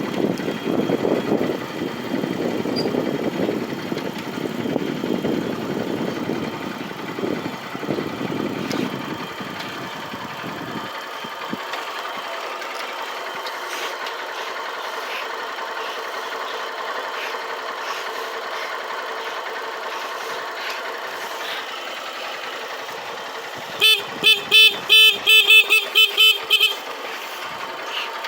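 A vehicle horn sounded in a quick run of about ten short honks near the end, over a low rumble that fades out about ten seconds in.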